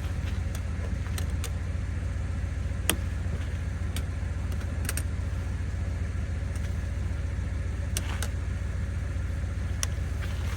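Road noise of a vehicle being driven: a steady low rumble with scattered small clicks and rattles.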